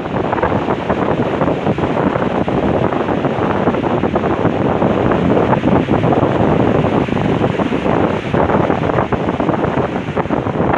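Loud, steady wind noise buffeting the microphone, mixed with the wash of sea waves on the shore.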